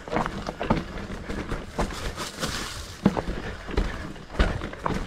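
Mountain bike clattering over rough trail: irregular knocks and rattles at an uneven pace, over a continuous low rumble.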